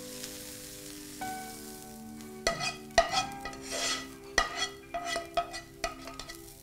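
A metal spoon scraping and tapping against a pan, pushing chopped onion, green chilli and coriander into a bowl of adai batter, starting about two and a half seconds in. Background music with long held notes runs underneath.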